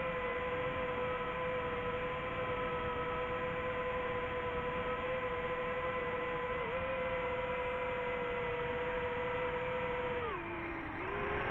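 Drone motors and propellers running at a steady throttle with an even hum. Near the end the pitch drops sharply as the throttle is eased off, then rises again as it comes back on.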